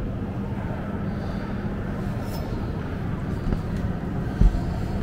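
Steady background hum and murmur of a large indoor exhibition hall, with one low thump about four and a half seconds in.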